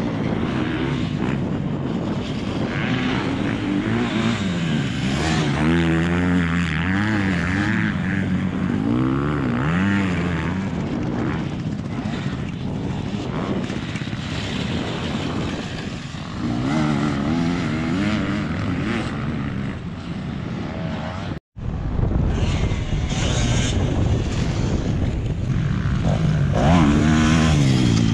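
Motocross dirt bikes revving hard on a dirt track, the engine note rising and falling again and again as riders pass and take a jump. The sound cuts out for an instant about three-quarters of the way through.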